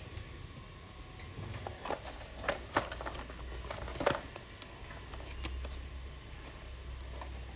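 Small objects being handled: a few light clicks and rustles, the loudest about four seconds in, over a low steady hum.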